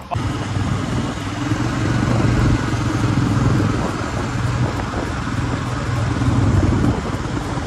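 Motorcycles riding along in a group: a steady low engine hum under a loud rush of wind and road noise from riding at speed.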